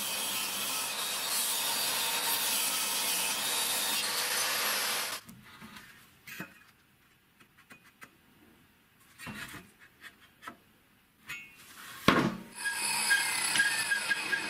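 Homemade angle-grinder-driven table saw ripping through a wooden beam: a steady, loud sawing noise that stops abruptly about five seconds in. After a stretch of faint handling knocks there is a sharp knock, and the saw blade runs again near the end.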